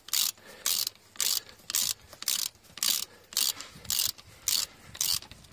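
Hand ratchet wrench tightening a wheel bolt: short bursts of ratchet clicking, about two a second, one with each back-swing of the handle.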